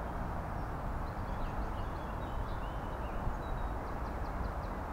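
Steady low outdoor rumble, with faint small-bird chirps and a quick trill of notes higher up, from about a second in to near the end.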